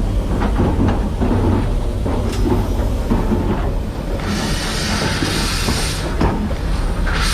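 Steam locomotive running with a low rumble and a run of regular knocks. About four seconds in, steam hisses for a couple of seconds, and the hiss starts again near the end.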